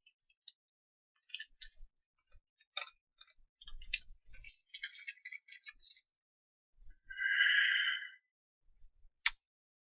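Small plastic and metal parts clicking and rattling on a workbench as a spare connector is fetched. There is a short rasp lasting about a second, and then one sharp click near the end.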